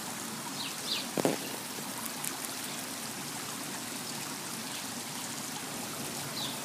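Water trickling and splashing steadily in a fish pond's rock water feature, with a few faint bird chirps and a brief knock about a second in.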